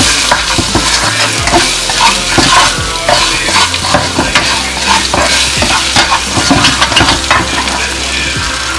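Fried tofu cubes and sliced onion sizzling in oil in a non-stick wok, stir-fried with a plastic spatula that scrapes and taps against the pan again and again.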